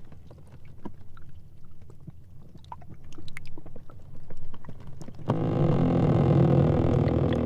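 Sea ice floes grinding against each other: scattered small crackles and ticks, then about five seconds in a loud, low, pitched squeaking groan as the floes rub together.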